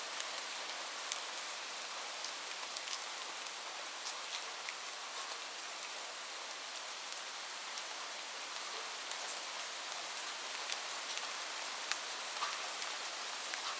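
Steady rain falling on a roof: an even hiss with many distinct drop ticks scattered through it, and no thunder.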